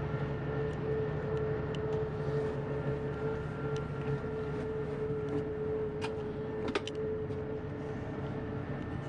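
Steady mechanical hum with a held mid-pitched tone and a deeper drone underneath, broken by a few faint ticks and a sharper click a little before seven seconds in.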